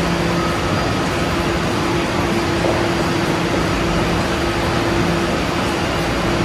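Tokyo Metro Marunouchi Line 2000-series train standing at the platform with its air conditioning and onboard equipment running: a steady rush of noise with a low, even hum.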